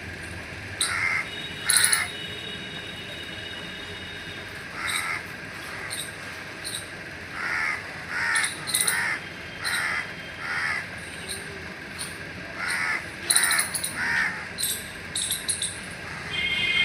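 Crows cawing: many short, harsh calls repeated at irregular intervals, often two or three in quick succession, over a steady outdoor hiss.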